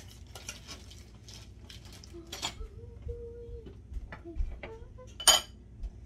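A spoon clinking and scraping against a bowl as food is stirred, with scattered small clicks of dishes and utensils on the table. One sharp clack stands out about five seconds in.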